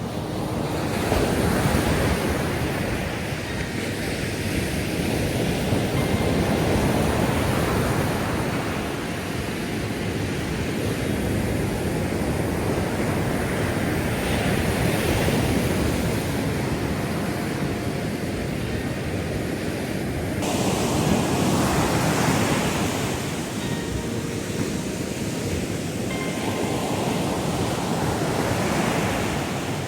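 Ocean surf: waves washing in and drawing back, swelling about every six to seven seconds.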